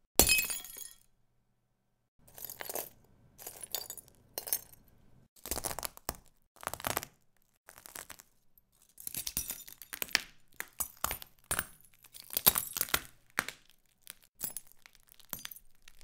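A string of short glass sound effects, clinks and breaking glass one after another with brief gaps, the first a loud smash just after the start.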